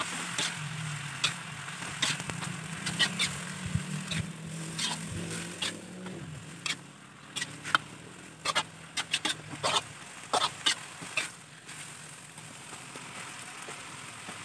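Metal spatula scraping and clicking irregularly against a steel wok as red fern greens are stir-fried, over a steady sizzle. A small engine hums steadily underneath and fades out about two-thirds of the way through.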